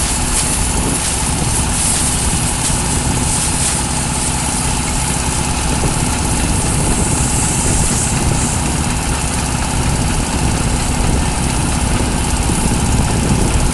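Heavy diesel engine idling steadily, with a constant hiss above it.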